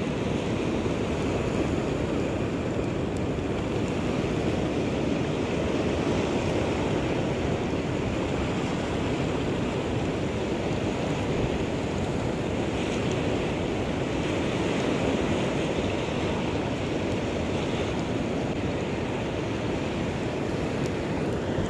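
Steady rush of sea surf washing and foaming around reef rocks, with no distinct breaks or impacts.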